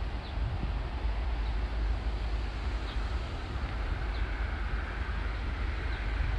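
Steady low rumble of wind buffeting the microphone outdoors, with faint short high chirps every second or so.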